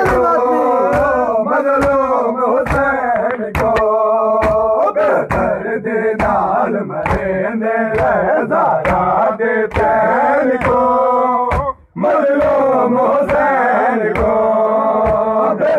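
A group of male mourners chanting a Punjabi noha in unison, with loud rhythmic slaps of hands on chests (matam) about once or twice a second. The chant and slaps stop briefly just before twelve seconds in, then resume.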